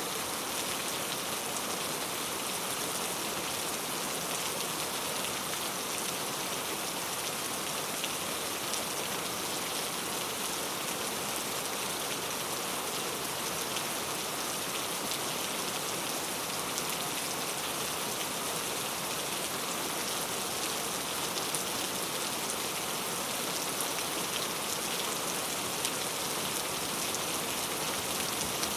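Steady heavy rain, an even hiss with scattered drops pattering on surfaces.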